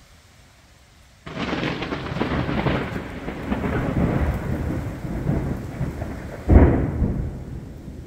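Thunder in a severe thunderstorm: a sudden crackling peal about a second in that rumbles on, then a louder crack at about six and a half seconds that fades into rumbling, over a faint hiss of rain.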